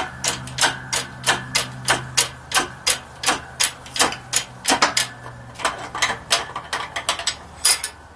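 Hydraulic shop press being pumped, its pump clicking evenly about three times a second as the ram forces a tight wrist pin out of the piston and connecting rod. The clicking stops shortly before the end, over a low steady hum.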